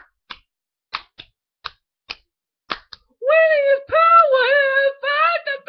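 About eight sharp, irregularly spaced clicks or slaps over the first three seconds, then a high-pitched voice singing long notes that bend up and down.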